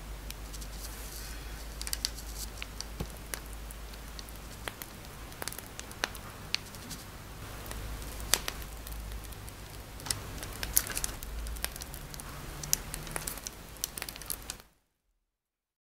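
Plastic piping bag crinkling and crackling as it is squeezed, with scattered sharp clicks as stiff bean paste is pressed out through the tip, over a low steady hum. It all cuts off suddenly near the end.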